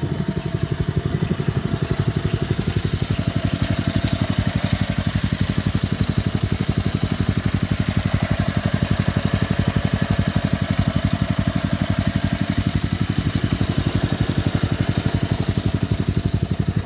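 Wheel Horse 252H lawn tractor's 12.5 HP Kawasaki single-cylinder engine running steadily, an even, rapid firing beat that holds the same speed throughout.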